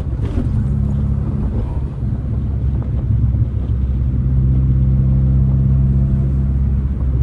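1990 Mazda Miata's 1.6-litre four-cylinder engine running as the car drives along, heard from inside the cabin with road noise. The engine note is uneven for the first couple of seconds, then holds a steady drone.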